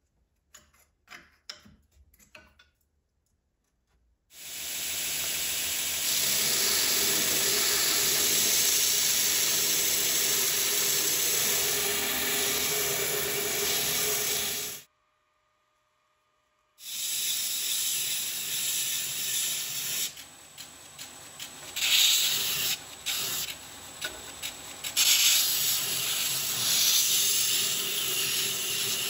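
A few light clicks of a wrench on the tool-rest bolts, then a homemade 2x72 belt grinder starts up and runs with a steady hiss of the abrasive belt grinding a rusty steel hammer head. The sound breaks off for about two seconds midway, then grinding resumes, surging louder and quieter as the steel is pressed to the belt.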